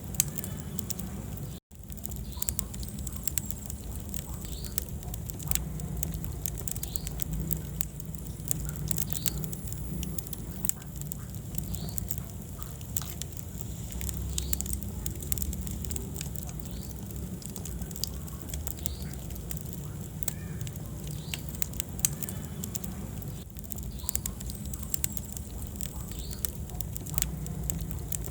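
Wood fire burning in a fireplace: steady crackling with frequent sharp pops over a low, even rumble of the flames. The sound cuts out for a split second about two seconds in.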